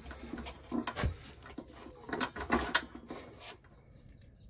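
Scattered metallic clicks and knocks from loosening the front axle nut by hand on a motorcycle's front wheel, several sharp taps in the first three and a half seconds, then dying away.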